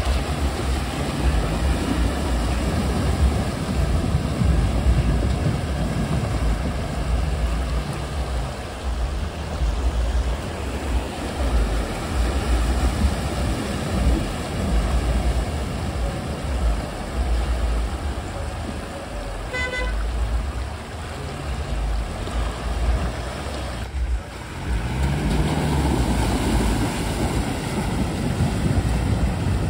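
Four-wheel-drive SUVs (a Maruti Gypsy, a Mitsubishi Pajero Sport and a Mitsubishi Pajero) driving through a fast, shallow river. Their engines rev and fall back over the rushing, splashing water. A short car-horn toot comes about twenty seconds in.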